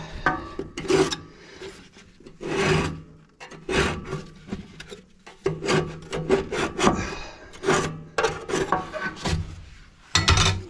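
Irregular series of short scraping strokes as material is trimmed away from a wood stove's back brick by hand.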